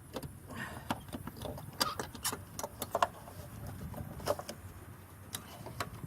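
Irregular light clicks and clatter of small hard parts being handled: the removed headlight bulb and its connector, with the loudest click about three seconds in.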